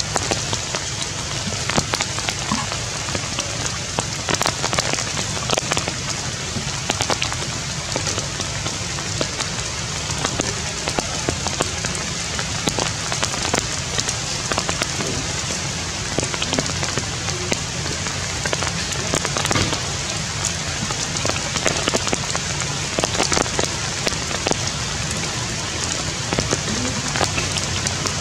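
Steady rain falling on tree leaves, with frequent sharp drips throughout.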